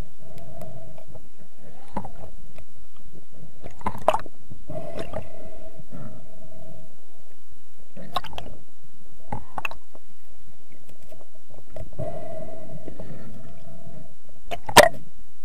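Muffled underwater sound of a diver handling a speared octopus: a low rumble of water movement with scattered sharp clicks and knocks, the loudest one near the end.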